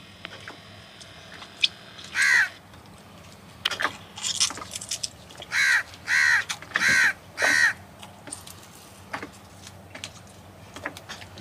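A crow cawing. There is a single caw about two seconds in, a short cluster of calls, and then four harsh caws in quick succession around the middle.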